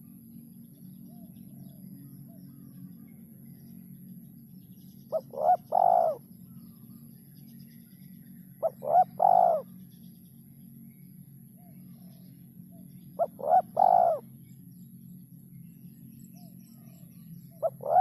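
Spotted dove (terkukur) cooing its three-note call, two short notes then a longer one, repeated about every four seconds. A steady low hum runs beneath.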